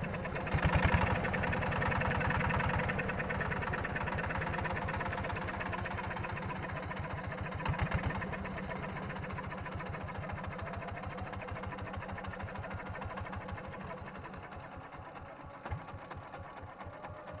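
A small engine running with a rapid, even beat, its beat slowing and its sound slowly fading away.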